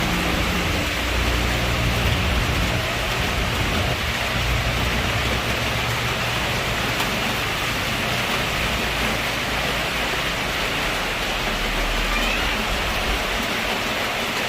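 Heavy rain falling steadily, a dense even hiss, with a low rumble underneath that fades away over the first half.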